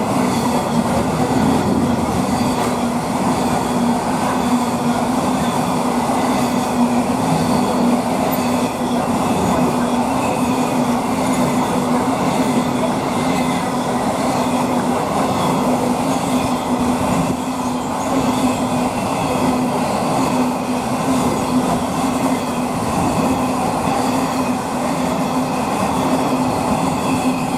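DB Cargo container freight train passing through the station at speed, its wagons rolling by in a long, steady rumble of wheels on rail with a constant humming whine and light wheel squeal.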